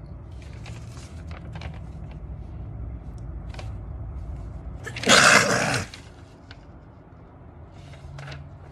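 A person sneezes once, loudly, about five seconds in. Faint sniffs and small rustles come before it.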